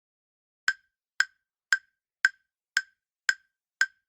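Countdown timer sound effect: short, sharp ticks, evenly spaced at about two a second, beginning a little under a second in.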